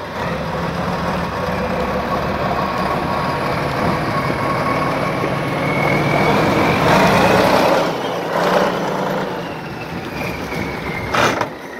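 Tatra trial truck's diesel engine running under load as the truck crawls over rough ground, with a thin whine in the middle. A burst of rushing noise comes about seven seconds in and a short sharp one near the end.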